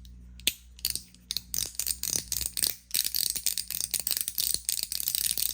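Mechanical fidget push slider being pushed back and forth, its spring-loaded balls clicking into the detent slots. A few clicks come about half a second in, then a rapid irregular run of sharp clicks follows.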